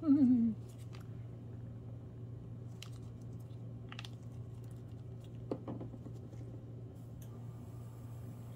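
A few faint clicks and taps as an airbrush and a small dropper bottle of airbrush paint are handled over the paint cup, above a steady low hum.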